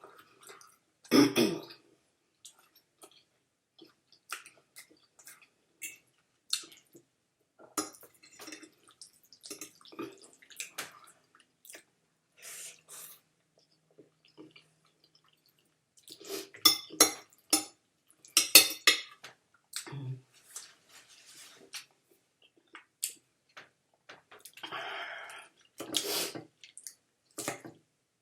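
Close-miked wet eating sounds from spaghetti: chewing, lip smacks and slurps in irregular clicks, with a louder wet mouth sound about a second in and light clinks of cutlery on a plate.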